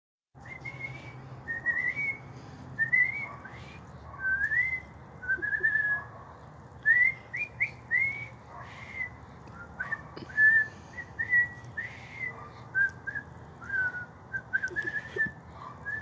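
A boy whistling bird-like calls: a long string of short, high whistled notes that slide up and down, some grouped in quick runs, made to call birds.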